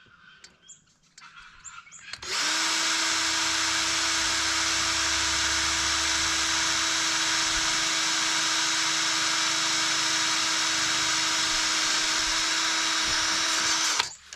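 Power drill running at a steady speed for about twelve seconds while drilling a pilot hole through an awning anti-flap kit piece; it starts about two seconds in and stops abruptly near the end.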